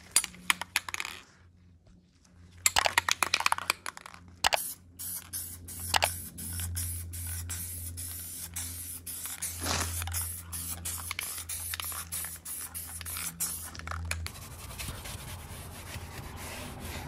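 Aerosol cleaner sprayed in short hissing bursts with scratchy clicks over carpet, under a steady low hum that stops near the end. Then a stiff brush scrubs foamed cleaner over a car door panel with an even rubbing sound.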